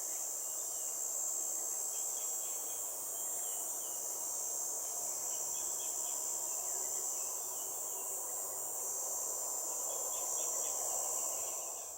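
Steady high-pitched chorus of insects, with a few faint short chirps scattered through it.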